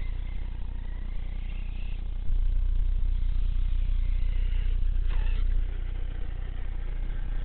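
Redcat Shredder 1/6-scale electric RC truggy's brushless motor whining, its pitch gliding up and down as the truck drives. A heavy low rumble on the microphone comes in about two seconds in and drops away about five and a half seconds in.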